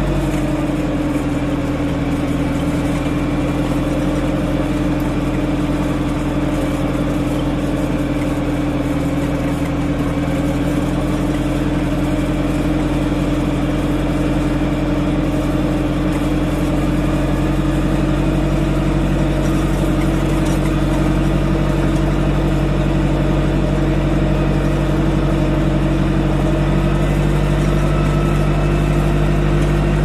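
Deutz-Fahr Agroplus 90 F tractor's diesel engine running steadily while driving along a lane. The engine note settles a little lower just after the start, then creeps gradually higher over the second half.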